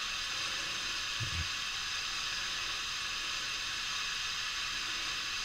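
Steady background hiss of room tone, with one faint soft low thump about a second in.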